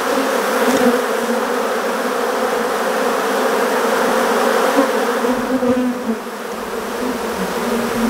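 Africanized honeybees buzzing around an open hive in a steady, dense hum, from a colony the keeper calls nasty-tempered and angry.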